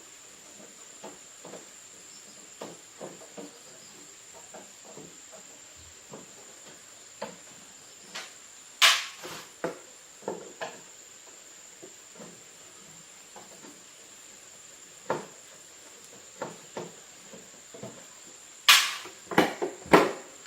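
Irregular small clicks and taps of tools and parts being handled on a workbench, with two louder sharp knocks, one about nine seconds in and one near the end, over a faint steady high whine.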